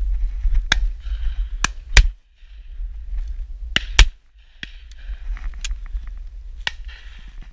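Two loud shotgun shots about two seconds apart, fired at driven pheasants. Several fainter sharp cracks fall around them, over a steady low rumble of wind on the microphone.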